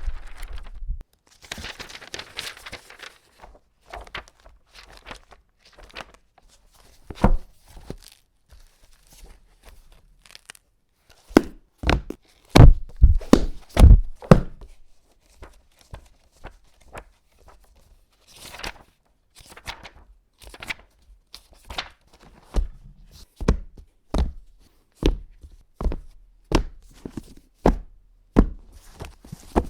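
A book handled for foley: short rustles of paper, scattered knocks, a cluster of loud thumps about halfway through, then a steady run of thumps about one and a half a second toward the end.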